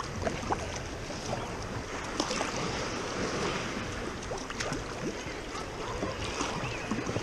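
Sea kayak paddle strokes splashing in the water, with waves lapping at the hull and wind on the microphone.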